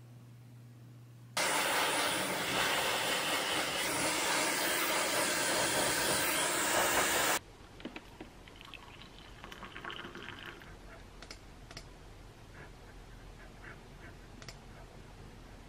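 Philips electric kettle boiling with a loud, steady rushing hiss for about six seconds that cuts off abruptly. Then hot water is poured from the kettle into a mug for a couple of seconds, followed by a few light clicks and knocks.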